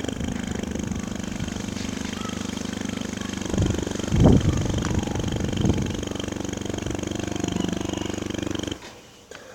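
Mini subwoofer speaker playing loud low bass with a fast buzzing pulse, a few heavier hits in the middle, and a sudden cut-off near the end.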